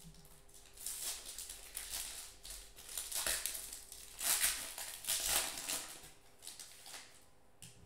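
Foil wrapper of a Panini Majestic football card pack crinkling in the hands as it is worked open, in a series of short rustling bursts.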